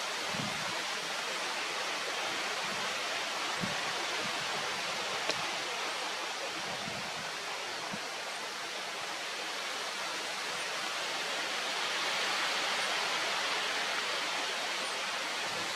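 Steady rushing noise with an even hiss, with a few faint soft knocks.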